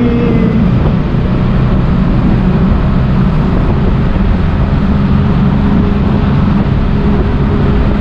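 Benelli TRK 502X's parallel-twin engine running steadily at a constant cruise, heard from the rider's seat together with road noise inside a road tunnel.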